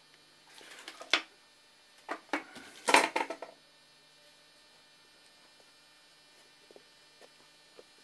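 Small hard objects being handled and set down on a work surface: a run of knocks and clinks in the first few seconds, the loudest about three seconds in, then only faint ticks.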